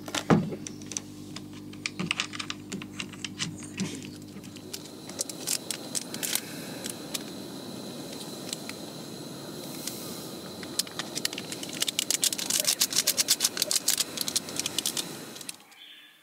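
Charger plug clicking into a power strip over a steady electrical hum. Then a portable gas canister stove burning under a metal cup with a steady rush, along with many sharp clicks that grow thicker late on; it all stops shortly before the end.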